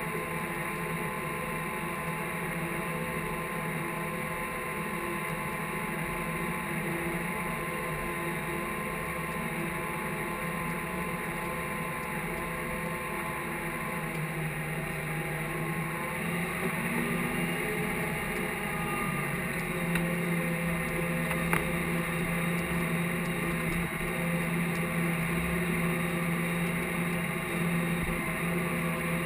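Case IH tractor's diesel engine running steadily while pulling a field cultivator, heard from inside the cab. The engine note rises slightly and gets a little louder about halfway through, and there are a couple of faint clicks near the end.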